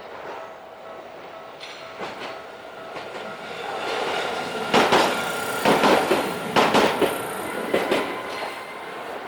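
Tokyu Setagaya Line light-rail train passing over a level crossing, its wheels clattering over the rail joints. The sound grows from about three seconds in and is loudest with a run of sharp knocks between about five and seven seconds in.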